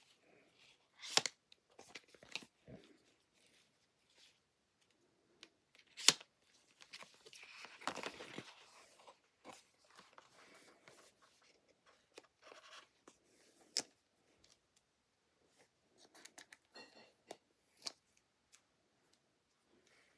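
Apple Watch packaging being opened by hand: scattered sharp clicks and taps of cardboard and plastic, with a longer tearing rasp about seven to nine seconds in.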